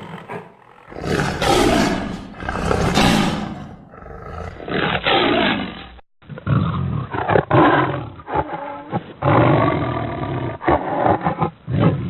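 Saber-toothed cat (Smilodon) creature sound effect: a series of big-cat roars and snarls, one after another, with a brief break about six seconds in. The later roars sound duller, as if cut off in the highs.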